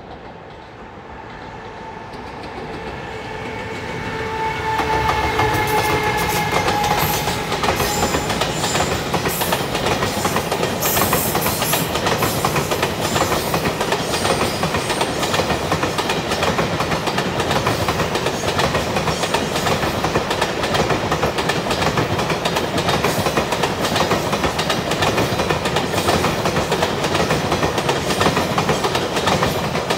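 JR Freight EF210 'Momotaro' electric locomotive approaching and passing, with a whine that grows louder and then dips slightly in pitch, as the level climbs over the first few seconds. Then a long container freight train rushes by at speed, its wheels clattering steadily over the rail joints.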